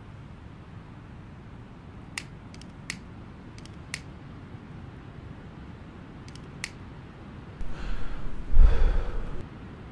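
A few sharp clicks of a lighter being struck to light a cigarette, then a long, loud breath of smoke blown out near the end, lasting about two seconds.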